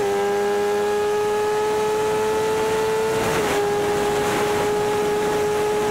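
BMW S1000RR inline-four sportbike engine at high revs under hard acceleration, its note rising steadily. It dips a step right at the start and again about three and a half seconds in as it shifts up a gear, over steady wind rush.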